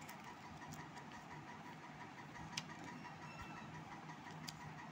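Faint steady background hum, with two short crisp clicks of a folded paper instruction leaflet being handled, one about halfway through and one near the end.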